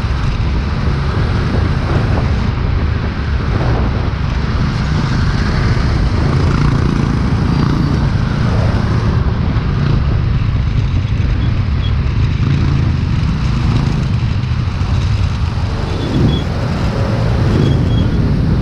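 Motorcycle running steadily while riding through city traffic, under a continuous rush of road noise with other vehicles around it.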